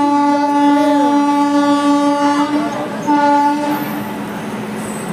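Indian Railways train horn: a long blast that ends about two and a half seconds in, then a short second blast. After it comes the steady running noise of the train.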